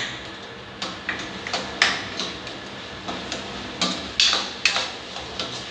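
A cooking utensil knocking and scraping against a pan while a thick tomato paste is stirred and heated. There are a dozen or so irregular clacks.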